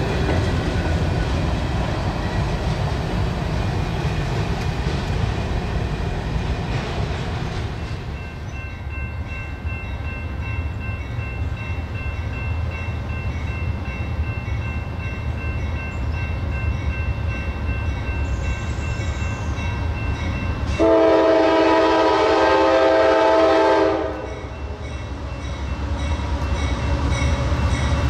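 Diesel freight train rumbling past. About 21 seconds in, a locomotive air horn sounds one loud chord lasting about three seconds, then the rumble builds again.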